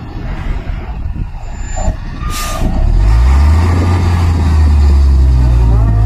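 Overloaded eight-wheel dump truck's diesel engine: a short air-brake hiss a little after two seconds in, then the engine revs up and holds a deep, steady drone under heavy load.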